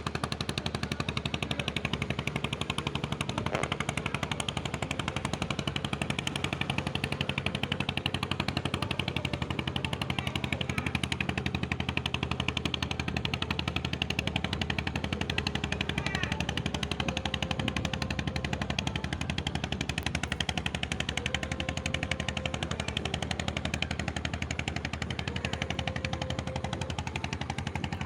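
Boat engine running steadily with a rapid, even 'deg-deg-deg' chugging.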